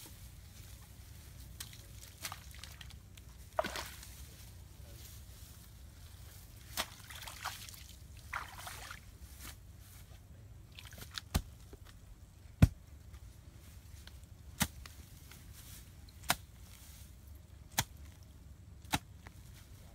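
Wet feathers being pulled from a bird by hand: soft, wet rustling tugs, with about six sharp clicks spaced a second or two apart in the second half.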